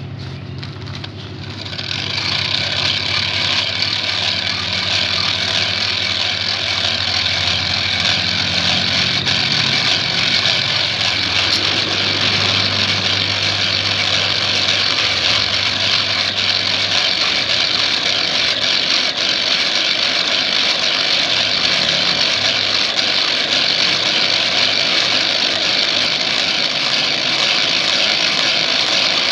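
Hand-cranked forge blower whirring steadily, starting about two seconds in, as it forces air into a charcoal fire heating the joint where two band-saw blades are being spliced. A low hum underneath fades out partway through.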